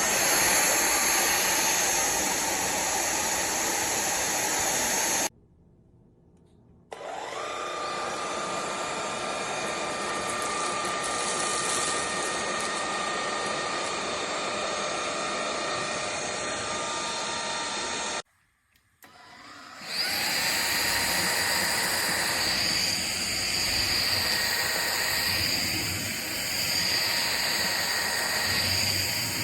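Powerffy N10 cordless stick vacuum running with a steady whine. It cuts out about five seconds in and starts again with a rising whine as the motor spins up, then stops again about two-thirds of the way through and runs once more.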